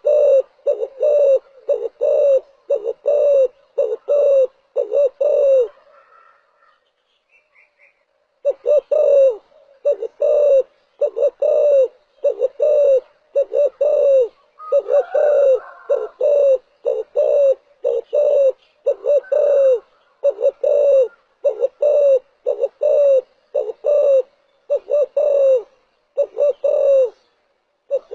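A spotted dove cooing: a long series of short, low, downward-bending coos about every 0.7 seconds, with a pause of about two seconds around a quarter of the way through.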